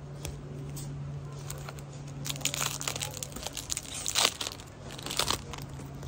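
Foil wrapper of a baseball card pack being torn open and crinkled by hand: a run of crackling tears and crinkles starting about two seconds in, loudest near the four-second mark.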